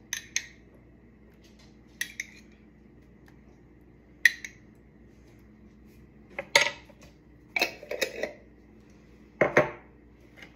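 A utensil clinking and scraping against a food bowl while salsa and toppings are spooned into a lunch portion: irregular sharp clinks every second or two, with a few longer scrapes in the second half.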